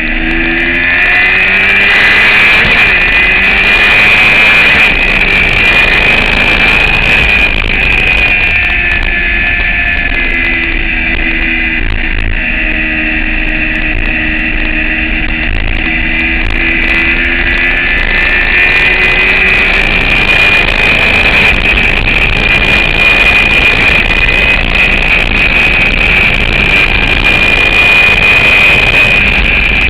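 Sport motorcycle engine at track speed, its pitch rising and falling as the rider accelerates, shifts and brakes, under a constant rush of wind and road noise.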